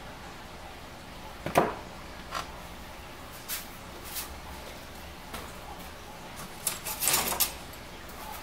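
A kitchen drawer being rummaged for a spatula: a sharp knock about a second and a half in, a few lighter knocks, then a busier clatter of utensils near the end.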